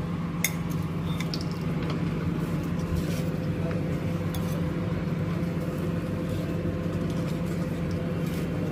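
A steady mechanical hum, with a few light clinks of a metal serving spoon against ceramic bowls and plates in the first few seconds.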